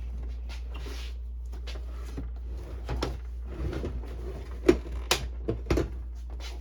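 Plastic printer housing being handled and pried at: scattered clicks and knocks of plastic clips and panels, the loudest a little before five seconds in. Under them runs a steady low hum from a dehumidifier.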